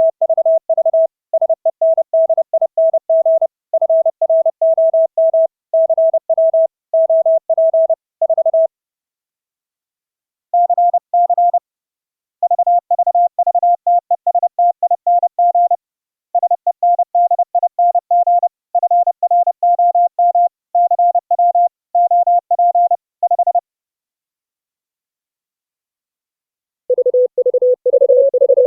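Morse code (CW) audio tones keyed in dots and dashes by several operators in turn over an internet-linked net, each at a slightly different pitch. After a short pause the code resumes a little higher in pitch, and near the end, after a longer pause, a lower-pitched station starts sending.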